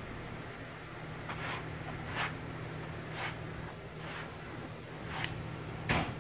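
Footsteps scuffing across a carpeted floor, about one step a second, the last one the loudest, over a steady low hum.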